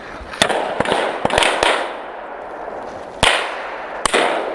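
Scattered rifle shots: a quick cluster of sharp cracks in the first two seconds, then three more spaced about a second apart, each trailing off in an echo.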